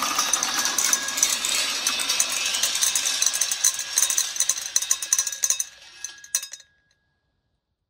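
A stream of small balls rolling and rattling along a steel rail channel: a dense, continuous metallic clatter of many small clicks. It thins out about five and a half seconds in to a few separate clicks as the last balls drop into the glass vase and onto the paving, then stops about seven seconds in.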